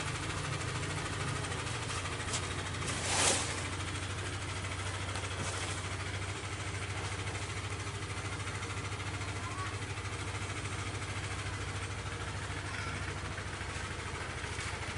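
Yamaha Aerox scooter's single-cylinder engine idling steadily, with a short burst of noise about three seconds in.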